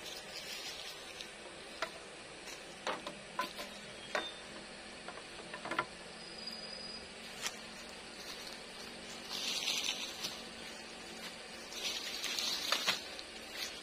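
Green bamboo poles knocking together in scattered clacks as they are laid side by side and pushed into place on a bamboo frame, with two longer rustling scrapes near the end.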